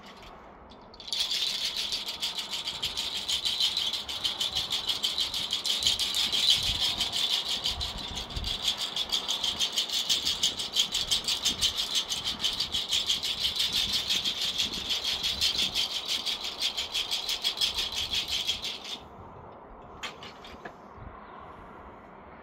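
Hand rattle shaken rapidly and evenly in a steady pulse, starting about a second in and stopping abruptly near the end.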